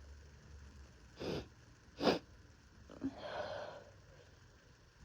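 A person with a heavy cold sniffling after a sneeze: two quick sniffs about a second apart, then a short breathy exhale with a slight voice at its start.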